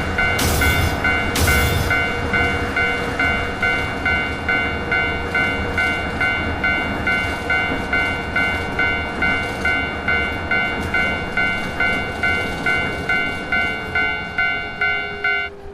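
Japanese railroad crossing alarm ringing its 'kan-kan' tone about twice a second over the low rumble of a passing train. Two loud bursts of noise come in the first two seconds, and the bell stops just before the end.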